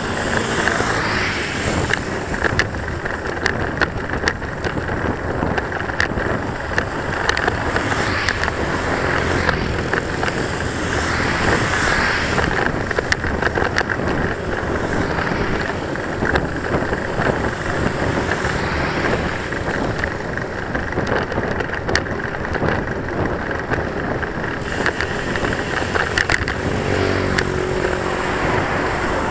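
Wind buffeting the microphone of a camera on a moving bicycle, mixed with the bicycle's rolling noise and frequent small knocks. Motorbikes pass close by on the road, one with a clear engine hum near the end.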